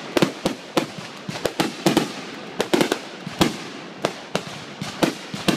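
Aerial fireworks bursting in a rapid, irregular string of sharp bangs and pops.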